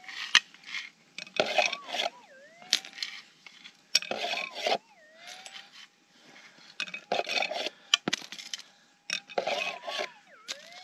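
Metal detector (Minelab GPX 6000) holding its steady threshold tone, which swoops down and back up several times as a target passes the coil, while dirt and gravel are shaken and poured in a scoop in several short rattling bursts to isolate a small gold nugget.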